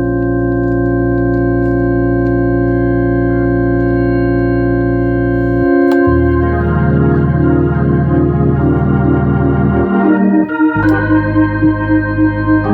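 Hammond organ playing sustained chords through a Leslie 22H rotating-speaker cabinet driven by a freshly refurbished Leslie 147 amplifier, as a test of the amplifier. The chords change about six seconds in and again near ten and a half seconds, with the rotating-speaker wobble turning into an even pulsing in the last couple of seconds.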